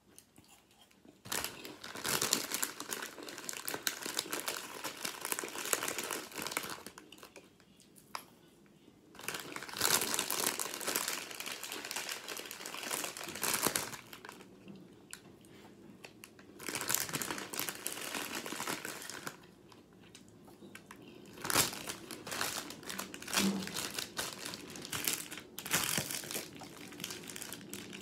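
Packaging crinkling and crumpling in four bursts a few seconds each, with quieter gaps between.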